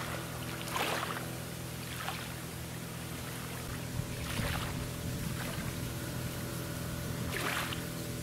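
Outboard motor of a small boat on the river running at a steady pitch, with a few brief rustles over it.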